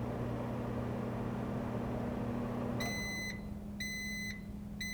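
Microwave oven running with a steady hum that stops a little under three seconds in, followed by its end-of-cycle alert tone: three beeps of about half a second each, roughly once a second.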